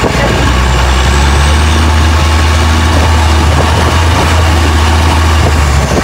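A motorboat's engine running steadily at speed with a constant low drone, over the rush of churning water and wind.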